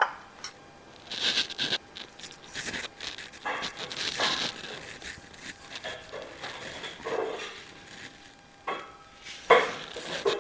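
Irregular light clinks, knocks and rustling of dishes and a spoon being handled, in short scattered bursts.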